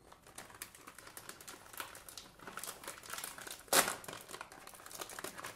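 Foil-lined potato chip bag crinkling as hands pull it open, with one sharp louder tear a little under four seconds in.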